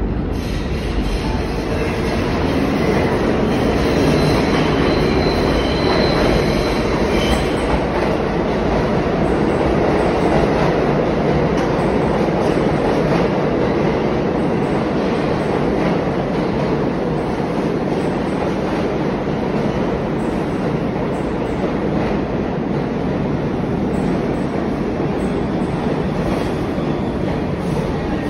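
New York City subway train pulling into an underground station and slowing along the platform: a steady, loud rumble of steel wheels on the rails, with a faint high wheel squeal a few seconds in.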